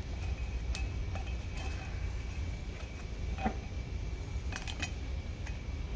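A piece of wire being twisted around a forklift's axle mount by gloved hands: scattered light metallic clicks and clinks of wire against the cast metal, over a steady low hum.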